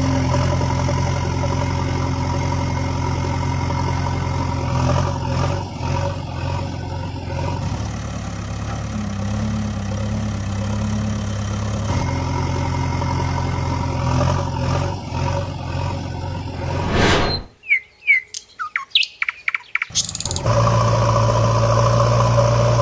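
Steady diesel engine running sound for the toy backhoe loaders, shifting pitch a couple of times. About 17 seconds in it stops for some three seconds of bird chirps, then starts again.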